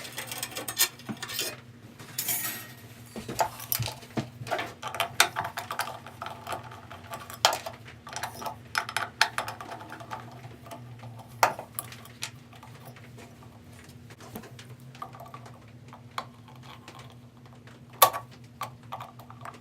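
Irregular metallic clinks, knocks and rattles of hand tools and bandsaw parts being handled while the saw is taken apart to reach its worn drive belt.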